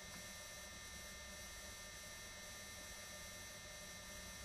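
Faint steady electrical hum with a light hiss: room tone.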